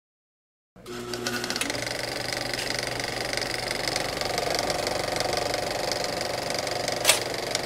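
Film projector sound effect: the fast, steady mechanical clatter of film running through a projector, starting about three quarters of a second in, with a sharp hit near the end.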